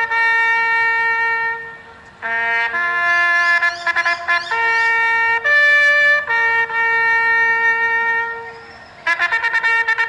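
A bugle call: long held notes stepping between pitches, with short breaks between phrases and a run of quick repeated notes near the end.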